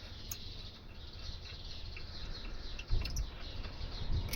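Short bird chirps in the background, with a few light clicks and a dull knock about three seconds in from handling the brake caliper bolts and parts.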